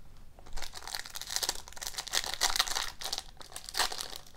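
Foil wrapper of a hockey card pack crinkling as it is handled and torn open. A dense run of crackles begins about half a second in.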